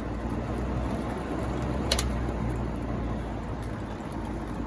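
Montgomery Ward three-speed box fan running on high: a steady rush of air over a low motor hum, with a single sharp click about two seconds in.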